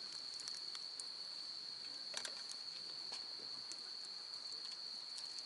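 Crickets trilling in a steady, faint, high-pitched chorus, with a few faint scattered clicks.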